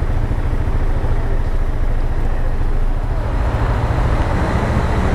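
Riding noise from a Dafra Next 250 motorcycle on the move in the rain: a steady low rumble of wind on the microphone over the engine and road noise, with a hiss that swells a little after about three seconds.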